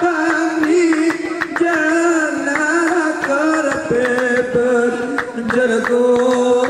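Didong Gayo singing: a lead voice holds long, wavering notes that step up in pitch about four seconds in, over a brisk run of hand-struck percussion from the seated troupe.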